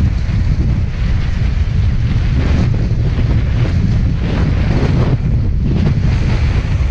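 Strong wind buffeting the microphone: a loud, continuous low rumble that swells and eases with the gusts.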